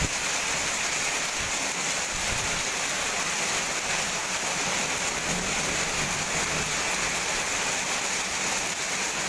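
Hailstorm: hail and rain pelting down in a steady, dense hiss.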